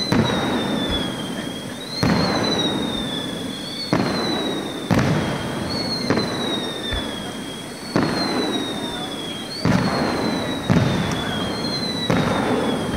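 Aerial fireworks shells bursting one after another, a sharp bang about every one to two seconds, each dying away before the next. A high whistling tone slides down in pitch between the bangs.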